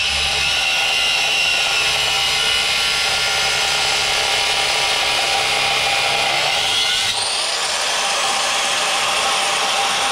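Angle grinder grinding into cast iron: a loud, steady grinding rush over a high motor whine that drops in pitch under load and climbs back about seven seconds in as the load eases.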